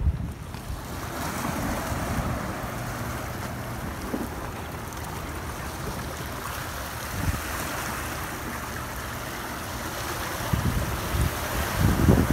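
Small waves washing and splashing against the rocks of a jetty, with wind rumbling on the microphone in gusts that grow stronger near the end.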